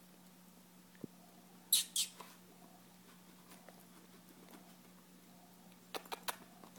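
A small dog gives two short high-pitched squeaks about two seconds in. Near the end comes a quick run of sharp clicks.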